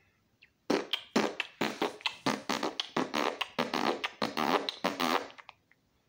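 A man making a rapid, loud string of wordless mouth noises with his voice, starting about a second in and stopping about a second before the end.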